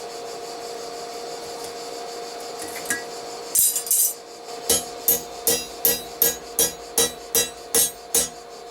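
Hand hammer striking a hot steel rivet on the anvil to set it and join two forged tong halves, in a steady run of ringing metallic blows about two and a half a second that starts about halfway through. Before the blows there is a steady hum.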